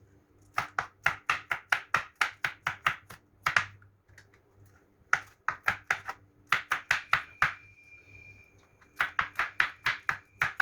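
Kitchen knife chopping vegetables, rapid sharp strokes at about four a second in three runs with short pauses between them.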